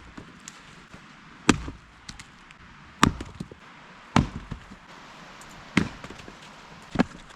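Firewood being worked by hand: five sharp wooden knocks, about one every second and a half, each followed by a brief clatter.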